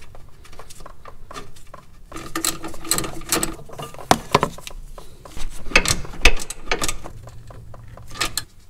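Hand wrench turning a brake-line fitting: a run of irregular metallic clicks and ticks, ratchet-like, as the fitting is worked loose or tightened.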